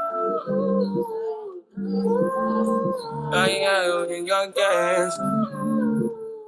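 Background music: a song with a sung vocal line of long held notes over a steady backing.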